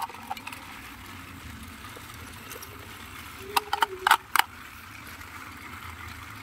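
Sharp plastic clicks as AA batteries are pressed into a battery-operated toy train's battery compartment. They come as a quick cluster of four or five clicks about three and a half to four and a half seconds in, over a faint steady background.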